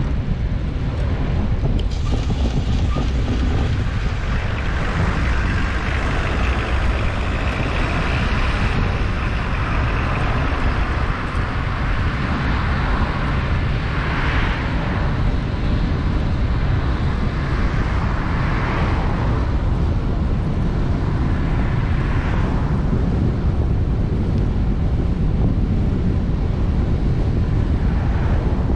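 Wind buffeting the microphone of a camera riding along on a bicycle: a loud, steady low rumble. Road traffic swells past three or four times, rising and fading, through the middle stretch.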